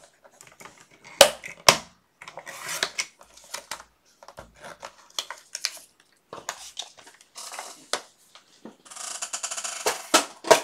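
Cardstock and small craft tools handled on a work table: paper rustling and light knocks, two sharp clicks a little over a second in, and a scratchy rasp lasting about a second near the end.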